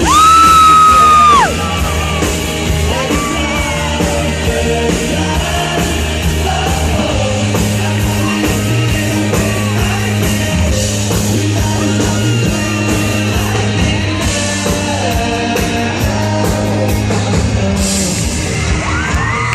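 Loud live pop band music with singing over a steady beat. At the very start a shrill, held scream, much louder than the music, lasts about a second and a half.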